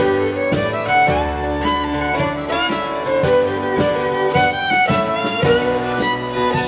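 Live contra dance band playing a dance tune: fiddle leading over electric keyboard and drums, with a steady beat.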